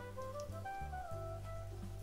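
Background music: a light instrumental tune of short notes stepping up and down over a steady bass.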